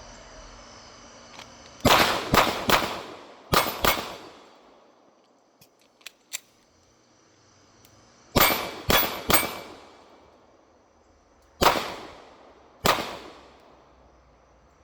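Ten pistol shots fired in quick strings: three, then two, a pause with a few light clicks, then three more and two single shots about a second apart, each with a short echo.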